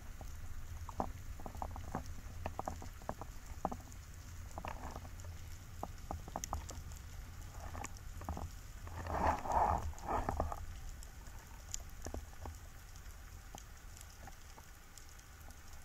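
Underwater ambience through a camera's waterproof housing: a steady low rumble with scattered sharp clicks and crackles, and a louder rush of water noise about nine to ten seconds in.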